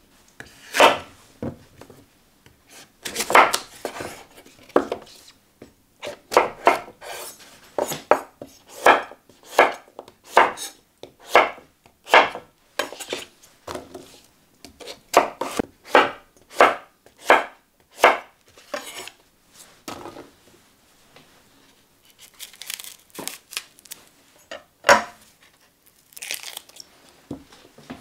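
Chef's knife chopping courgette on a wooden cutting board: a run of sharp knocks, about one or two a second, thinning out to a few quieter knocks near the end.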